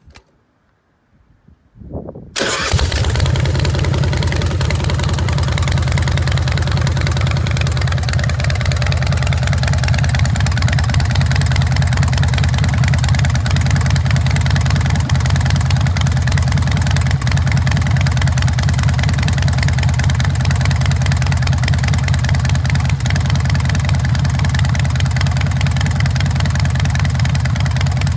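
Carbureted 111 cubic inch S&S V-twin engine with a custom exhaust starting about two seconds in, then idling steadily.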